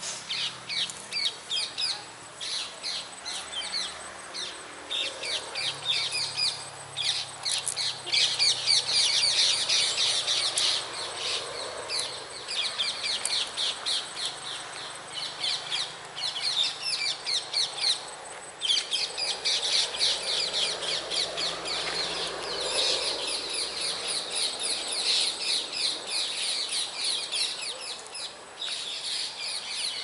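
Many small birds chirping rapidly and without let-up, a dense chorus of quick high calls broken by a few short pauses.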